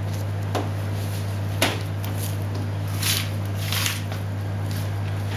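Boning knife cutting along the seam between the rib fillet and the rib bones while the meat is pulled away: about four short cutting and scraping sounds over a steady low hum.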